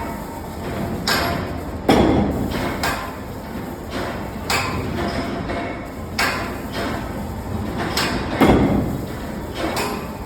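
Friction screw press forging brass: two heavy blows of the ram, about six seconds apart, with lighter metal knocks between them over the steady running noise of the machine.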